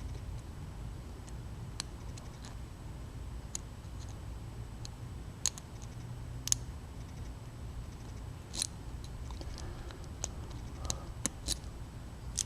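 Lock pick and tension wrench working the spool-pinned pin stack of a Papaiz CR35 5-pin padlock: scattered small, sharp metallic clicks at irregular intervals, a few louder than the rest, over a faint low steady hum.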